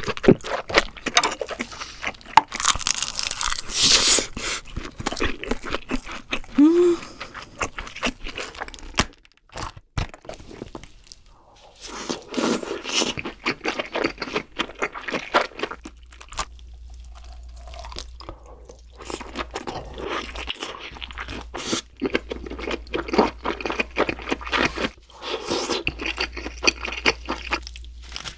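Close-miked eating sounds of king crab: crunching, biting and chewing in several bursts with short pauses between them.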